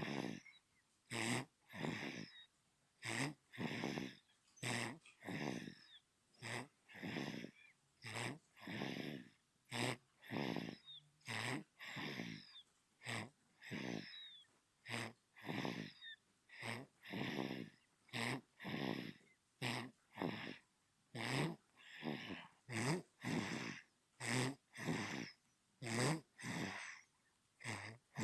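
A sleeping newborn baby snoring: short, snuffly breaths in a quick, even rhythm, a little under two a second.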